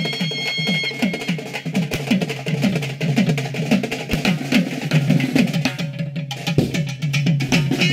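Karakattam folk-dance music led by a two-headed hand drum beating fast and steady, about four strokes a second, each stroke low and dropping in pitch. A held melody note fades out in the first second.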